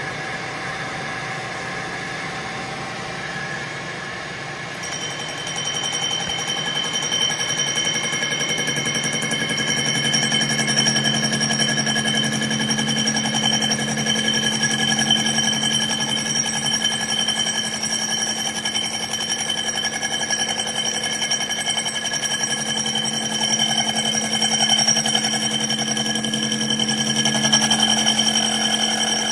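Metal lathe running with an 1/8 inch carbide cutoff tool cutting into a spinning Honda GX160 sheet-metal recoil starter cup. A steady high whine from the cut sets in about five seconds in and holds.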